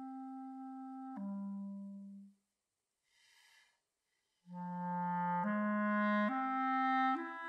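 Solo clarinet playing low held notes that end a couple of seconds in. After a pause of about two seconds, it starts again with a climbing series of sustained notes, each a step higher than the last.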